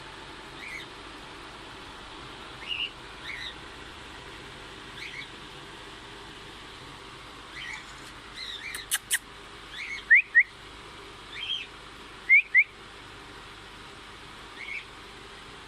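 Small pet parrots chirping now and then, with a few sharp clicks about nine seconds in. Two pairs of loud, quick rising whistles follow, about ten and twelve seconds in.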